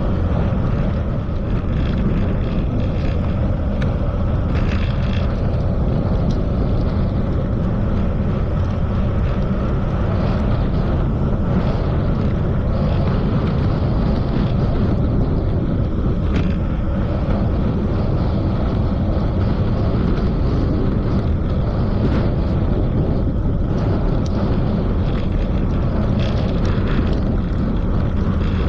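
Steady wind rush and rumble on the microphone of a moving bicycle, with tyre and road noise and a few light clicks or rattles scattered through it.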